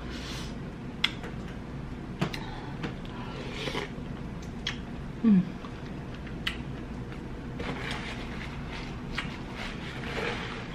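Quiet close-miked eating sounds as a sauced, seasoned colossal shrimp is handled and eaten: scattered small clicks and wet ticks and a few soft rustles, with a brief low falling hum about five seconds in.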